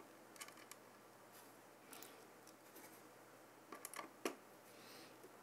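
Faint small clicks and scrapes of a screwdriver turning the screws that hold a CPU cooler's metal mounting bracket down into its spacers. There are a handful of soft ticks, with the sharpest about four seconds in.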